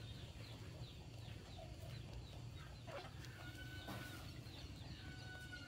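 Chickens clucking and chirping faintly: a run of short, falling high calls, with a couple of longer held whistling notes partway through, over a low steady hum.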